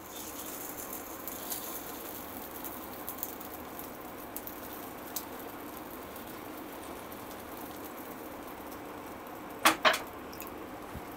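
Beaten egg sizzling gently in oil in a shallow pan over a low flame: a steady soft sizzle with faint crackles. Two short louder noises come close together near the end.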